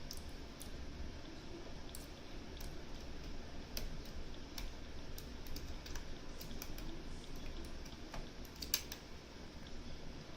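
Light, irregular metallic clicks from picking tools working the discs of a Mosler M5700 safe deposit box lock, with a sharper cluster of clicks near the end, over a low steady hum.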